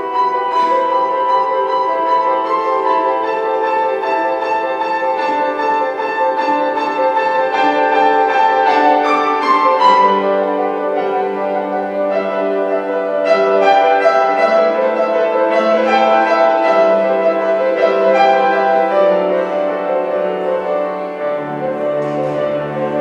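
Piano and string orchestra playing classical music, with sustained notes that change every second or so; deeper bass notes come in near the end.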